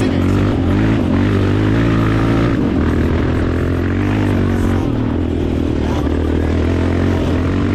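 Dirt bike engine running at a fairly steady speed, its pitch shifting slightly a couple of times.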